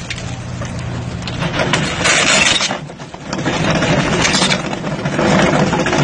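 Excavator engine and hydraulics running while its drum cutter attachment spins in the air. There is a loud burst of rattling noise about two seconds in and a short dip around three seconds, then the noise builds again.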